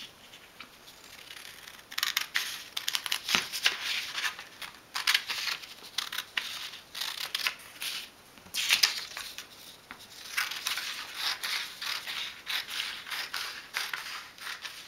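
Scissors cutting through a printed paper sheet: runs of short snips in clusters, with the paper rustling, starting about two seconds in.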